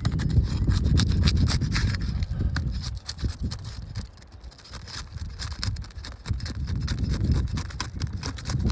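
Rapid, irregular scraping and clicking of a tool worked against and under an asphalt 3-tab shingle to break the tab's adhesive seal, over a low rumble.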